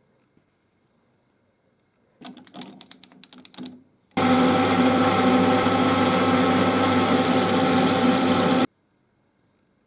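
A loud, steady electric power tool motor runs for about four and a half seconds, starting and stopping abruptly. It follows a short burst of clicks and knocks.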